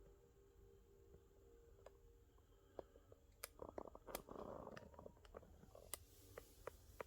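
Near silence with faint handling noises: scattered light clicks and a short rustle about halfway through.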